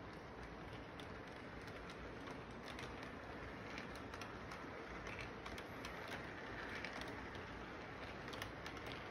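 Model train rolling along its track, the wheels clicking irregularly over the rail joints above a steady low rumble.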